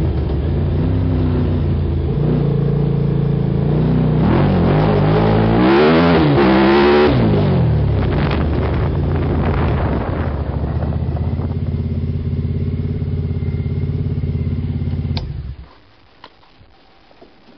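Minibuggy engine running under way, revving up and falling back between about four and eight seconds in, then running more steadily and a little quieter. It is switched off with a click about fifteen seconds in, leaving only a few faint clicks.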